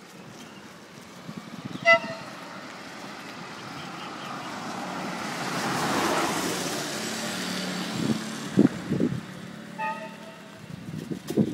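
A vehicle horn toots once, then a motor scooter passes with road and engine noise that swells and fades. Near the end the horn gives a few short beeps, and low bumps of wind hit the microphone.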